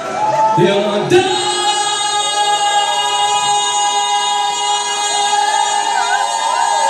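Live band music with many voices singing and holding a long note together over a sustained chord, after a brief knock about a second in.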